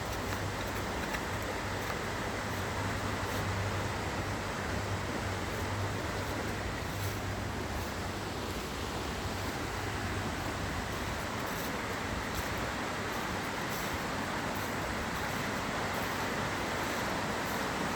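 River water rushing in a steady, even flow, with a low rumble underneath.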